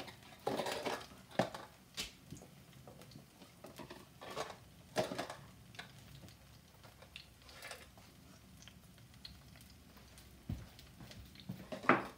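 Empty plastic food containers being picked up and stacked on a kitchen counter: scattered light clacks and knocks, the loudest near the end.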